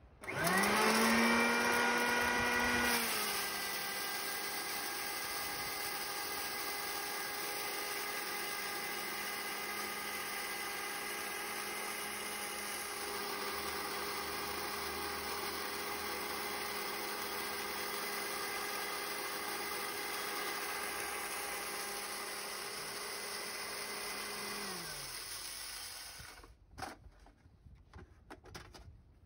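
Kadmec Euromill-25 electric grain mill switched on. Its motor whines up to speed within a second, steps slightly lower in pitch after about three seconds, and runs steadily while grain feeds through the hopper. Near the end it is switched off and winds down with a falling whine, followed by a few knocks.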